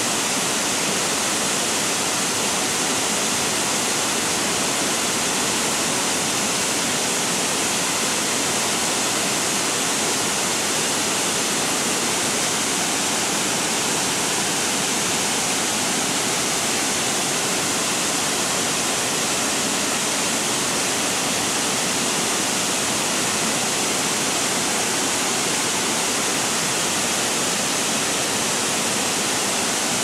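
Steady rushing hiss of a thin waterfall falling down a rock face, constant and unbroken.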